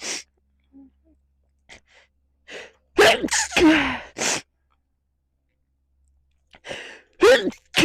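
A person's sneezing fit: a few faint catching breaths, then a quick run of loud sneezes about three seconds in, and another sneeze beginning near the end.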